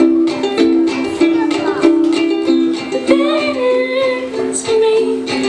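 Ukulele strummed in a steady rhythm, playing chords as song accompaniment.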